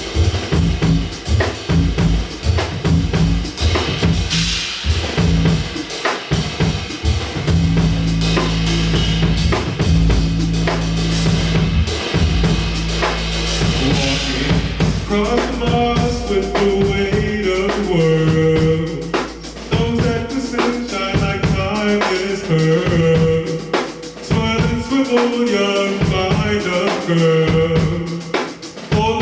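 Live band playing without vocals: a drum kit with kick, snare and rimshots over a heavy bass line. A keyboard melody of held notes comes in about halfway through.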